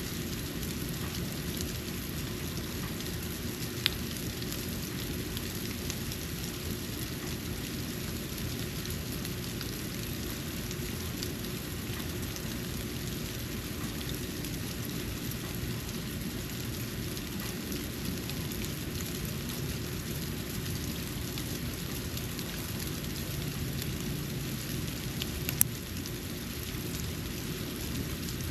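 Snow falling onto a porch: a steady hiss and low rumble with scattered faint ticks of flakes landing. Two sharper clicks stand out, about four seconds in and near the end.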